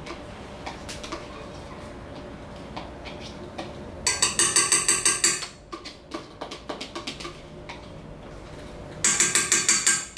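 Rapid rattling taps of a utensil against a plastic bowl, knocking ingredients out into a stand mixer's steel bowl, in two runs of about a second and a half each, with lighter clicks between.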